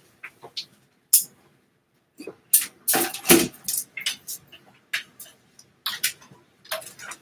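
Scattered knocks and clicks of a person getting up from an office chair and moving about, handling things, with a cluster of louder knocks about two and a half to three and a half seconds in.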